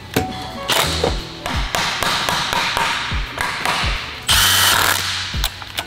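Cordless drill whirring in short bursts while fastening parts of a transmission case, over background music with a steady thudding beat and bass notes.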